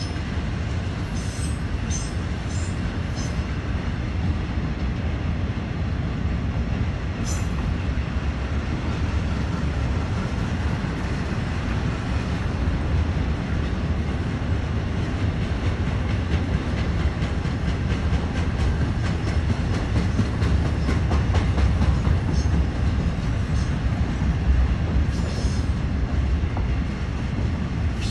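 BNSF intermodal freight train's cars rolling past slowly on a curve: a steady low rumble of wheels on rail. Brief high wheel squeals come near the start, about seven seconds in, and again near the end.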